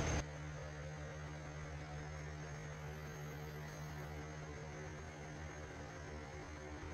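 Steady low electrical hum with a faint hiss under it: room tone. A louder hissing noise cuts off abruptly in the first instant.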